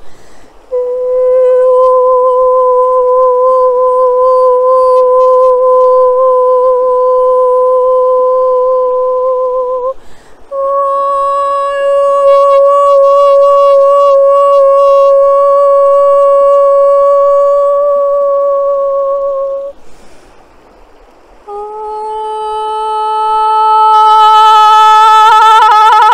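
A woman's voice toning: three long held single notes of about nine seconds each, with a short break for breath between them. The second note is a little higher than the first and the third is lower, and the last one swells louder and fuller near the end.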